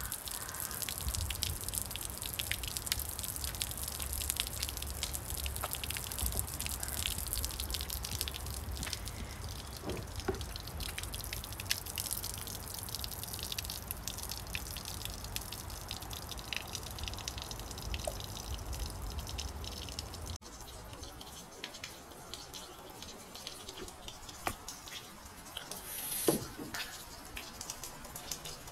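Water running from a garden hose into a cut plastic bottle and overflowing, splashing and dripping onto a stone table top, with many small drips and splats. A low rumble beneath it drops away about two-thirds of the way through.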